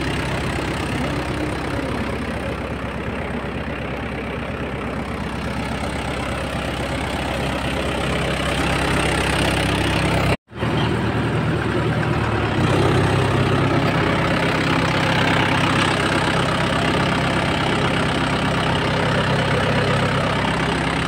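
Tractor's diesel engine running steadily at a low idle. The sound cuts out for a split second about halfway through, and the low drone is a little louder afterwards.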